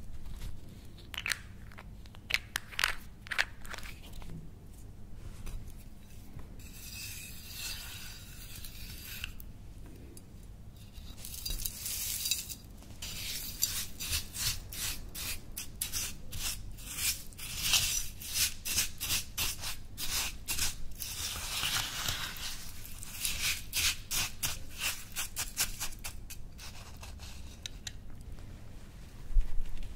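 A metal spoon scoops and stirs coarse white scrub granules in a small glass dish, making dense, rapid, gritty scraping strokes through most of the stretch. There are a few light clicks and taps in the first seconds.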